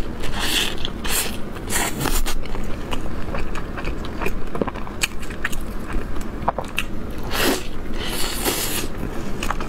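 Close-up biting and chewing of a crisp sesame flatbread stuffed with meat: several loud crackly crunches in the first two seconds and again near the end, with small wet chewing clicks between.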